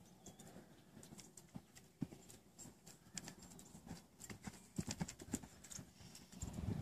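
A horse's hoofbeats on soft arena sand as it canters in a circle on a lunge line. The hoofbeats are soft and irregular, louder as the horse passes close about five seconds in and again near the end.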